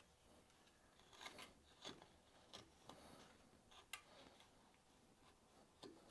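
Faint, short scraping strokes of a No. 11 carving gouge slicing grooves into green willow wood, a handful of separate cuts with pauses between them.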